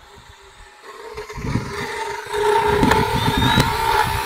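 DeWalt 20V cordless drill driving a motorized equine dental float inside a horse's mouth: a steady motor whine that grows louder over the first two seconds or so, with rough grinding as the bit files the teeth. This is a routine float, smoothing down sharp enamel points on the cheek teeth.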